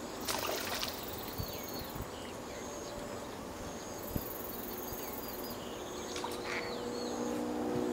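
Small birds chirping in short, falling calls several times over a steady outdoor hiss, with a few soft knocks. A low steady hum comes in near the end.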